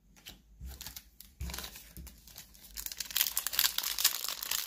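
Foil wrapper of a Pokémon booster pack crinkling as it is handled and torn open. A few light taps come first, then the crinkling grows denser and louder over the last couple of seconds.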